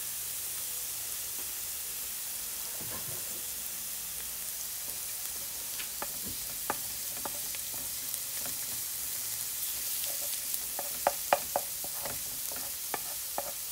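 Minced garlic sizzling in oil in a frying pan, a steady high hiss. A wooden spatula stirs it, with sharp taps and clicks against the pan from about halfway through, the loudest run of taps near the end.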